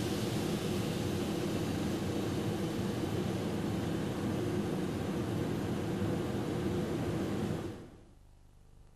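Steady machinery noise, a rushing sound with a low hum like a running ventilation fan. It fades out abruptly near the end.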